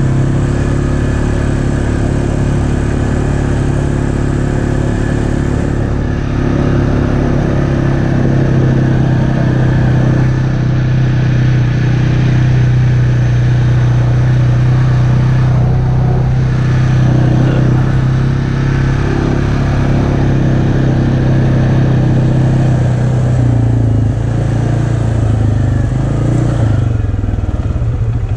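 ATV engine running steadily under way on a dirt trail, with wind and tyre noise. Near the end the engine note drops as the throttle eases off.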